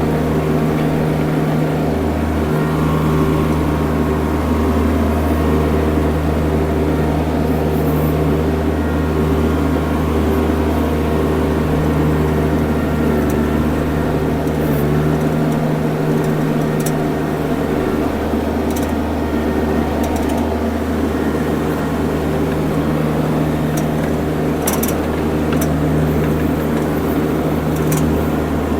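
Mini skid steer's engine running steadily under work, with a steady drone that wavers briefly near the middle and a few light clicks or clanks.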